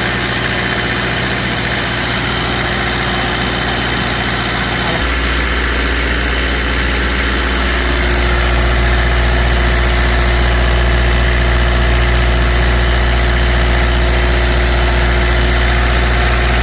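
Denyo 25 kVA diesel generator running steadily. About five seconds in, its low engine note changes abruptly and gets heavier, and the sound grows a little louder from about eight seconds on.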